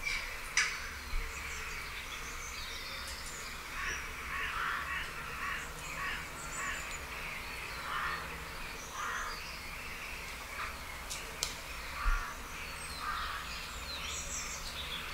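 Woodland nature ambience: birds calling every second or so over a steady low background hum, with a couple of short knocks near the start and another about twelve seconds in.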